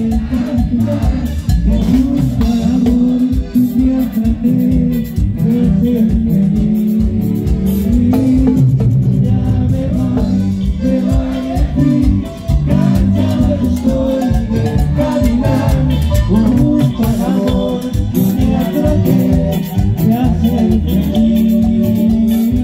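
A live band plays loud Latin dance music with a steady percussive beat, accordion and congas, and a singing voice at times.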